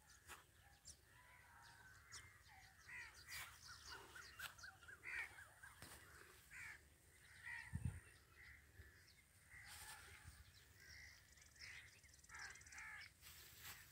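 Birds calling faintly, with scattered short chirps and a quick run of repeated notes about three seconds in. A soft low thump comes about eight seconds in.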